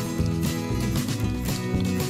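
Background instrumental music: a melody of held notes over a steady low bass.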